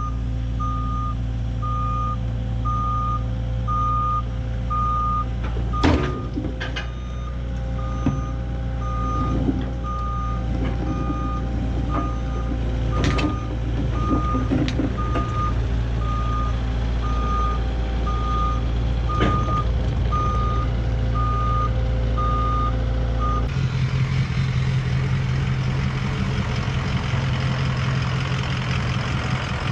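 CAT 305 mini excavator's diesel engine running as it tracks down a trailer's loading ramps, its travel alarm beeping steadily, with a few sharp clanks along the way. About three-quarters of the way in the beeping stops and a different steady engine sound takes over.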